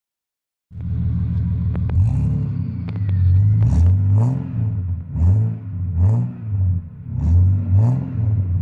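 Car engine heard at the exhaust tailpipe, idling while the throttle is blipped over and over, with a short rise in revs about once a second. It starts after a moment of silence.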